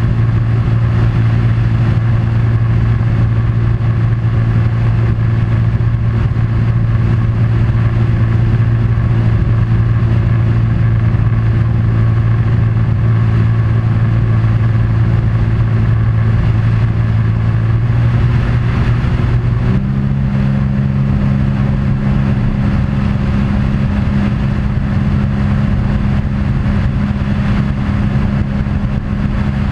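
A vehicle engine runs with a steady drone throughout. About twenty seconds in, the drone steps up to a higher pitch and stays there.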